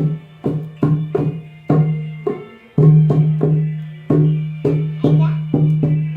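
Dholak, the Indian two-headed barrel hand drum, played in a lively rhythm: deep ringing bass strokes mixed with sharper slaps, about two to three strokes a second, with a faint sustained tone behind.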